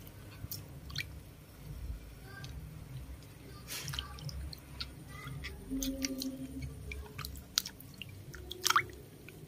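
Water sloshing and dripping in a plastic basin as baby monkeys move about in it, with a string of short splashes, the loudest a little before the end.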